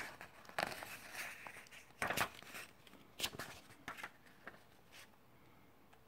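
Paper pages of a printed instruction booklet rustling as they are turned by hand. There is a run of brief swishes and crinkles, the loudest ones near the start and about two seconds in.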